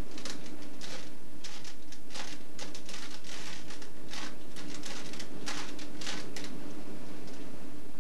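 Plastic Rubik's cube being twisted by hand: quick, irregular clacks and scrapes of the layers turning, often several in a second, over a steady low hum.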